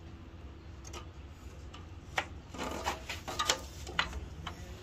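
Irregular light clicks and knocks of frame moulding strips being set against the fence and clamp on the metal bed of a frame corner-joining (pinning) machine, over a steady low hum.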